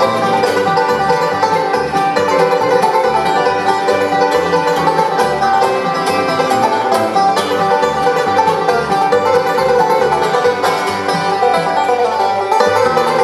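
Bluegrass band playing an instrumental led by two banjos together, over acoustic guitar, mandolin and plucked upright bass notes.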